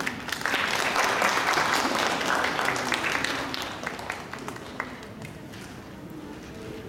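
Audience applause that swells right away, then dies down after about four seconds, ending in a few scattered claps.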